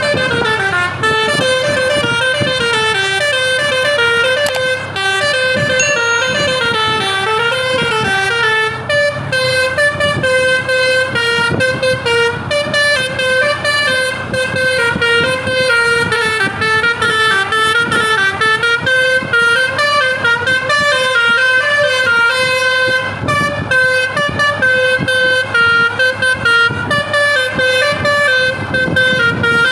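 Basuri V3 telolet multi-tone bus air horn, with roof-mounted trumpets, playing a melody: a continuous run of loud horn notes stepping up and down in pitch several times a second.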